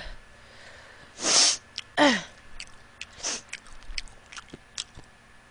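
A woman breathes out sharply through her nose into a tissue, sniffling from very spicy chicken wings. There are three noisy bursts: the loudest about a second in, one just after with a short falling voiced sound, and another about three seconds in. Small mouth clicks follow.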